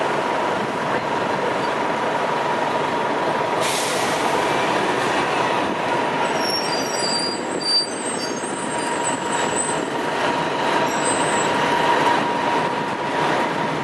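City transit buses running past at street level: steady engine and road noise under a constant high whine, with a few short high-pitched brake squeals near the middle.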